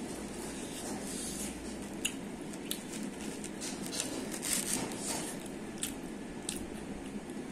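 A pizza slice being torn from the pie and handled by hand, giving short soft crackles and squishy clicks, busiest about halfway through, over a steady background hiss.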